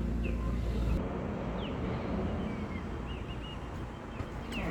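Birds calling: many short, high chirps, several a second, over a steady background hiss. A low steady engine hum cuts off about a second in.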